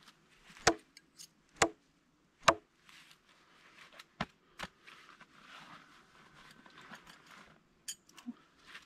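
Throwing knives striking and sticking into a palm-trunk stump: three sharp thuds about a second apart, then two lighter knocks a little after four seconds in. A few light clicks near the end.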